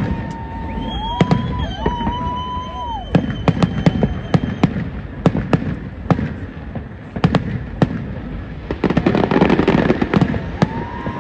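Aerial fireworks going off in quick succession: many sharp bangs and crackles, with a steady whistling tone held through the first three seconds and a denser rush of noise about nine seconds in.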